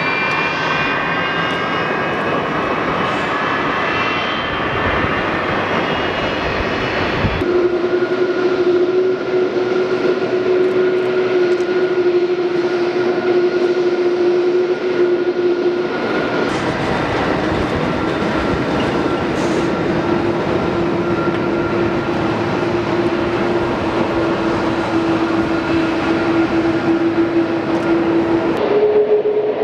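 Jet airliner engines: a whine falling in pitch over the first few seconds, then a steady whine over a rushing noise. The sound changes abruptly about seven and sixteen seconds in.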